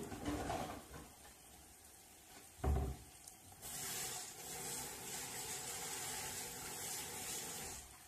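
Kitchen tap running into a sink, a steady rush of water that starts about three and a half seconds in while something is rinsed under it. A dull thump comes shortly before the water starts.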